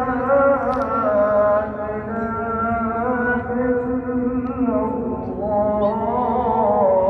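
A single voice chanting in long held notes that waver and slide in pitch, with few breaks.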